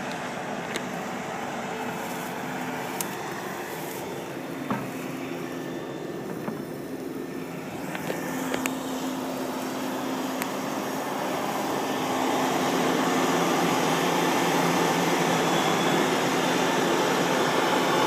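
Gleaner combine running steadily. It grows louder about halfway through as the machine comes up close, with a few faint knocks along the way.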